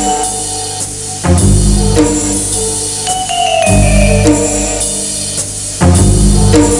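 Background music: a drama score with a melody of held notes over a heavy low beat about every two seconds.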